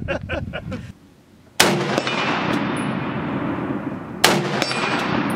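Ohio Ordnance BAR M1918A3 semi-automatic rifle fired twice, single shots about two and a half seconds apart, each followed by a long echo that dies away slowly.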